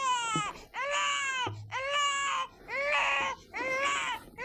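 Repeated high-pitched crying wails in the manner of a baby crying, about five in a row, each under a second long with brief breaks between them.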